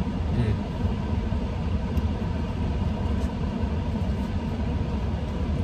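Car idling, a steady low rumble heard from inside the cabin.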